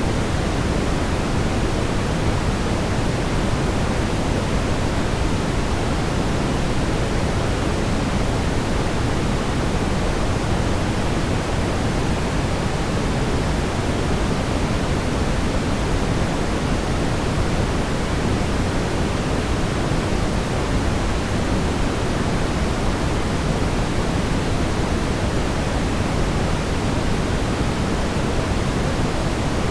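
Synthetic brown noise: a steady, even hiss-rumble weighted toward the low end, with no changes or events.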